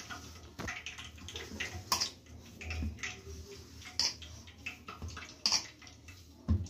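Soft, oily maida dough being kneaded by hand in a stainless steel bowl: irregular wet squishes and squelches as the fist presses and squeezes the dough, with a few sharper sticky smacks and light knocks against the bowl.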